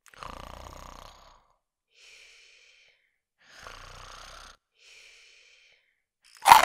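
Cartoon snoring: two rasping snores on the in-breath, each followed by a softer, whistling breath out. A sudden loud burst comes in at the very end.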